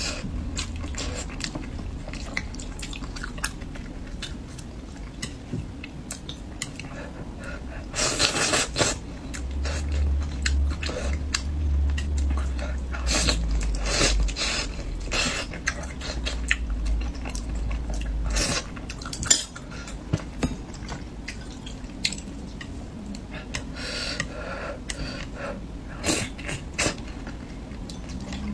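Eating with utensils: many small clinks and taps of cutlery against a bowl or plate, with a louder stretch about eight seconds in. A low rumble runs under the middle part.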